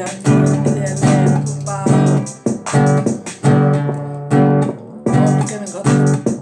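Guitar music: plucked, strummed notes in a steady rhythm.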